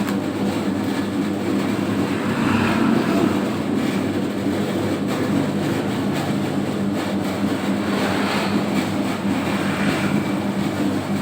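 Workshop-built 3 kg donut dough mixer running steadily, its motor and drive giving a constant hum.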